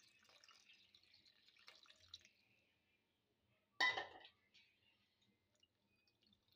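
Liquid poured into a bowl of flour, a faint thin trickle for the first two seconds or so. About four seconds in, one loud, sharp clink against the bowl.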